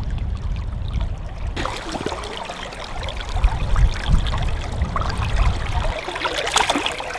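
Creek water running and trickling, turning brighter and closer about a second and a half in as a hand lowers a caught rainbow trout into the current to release it, with small splashes at the surface.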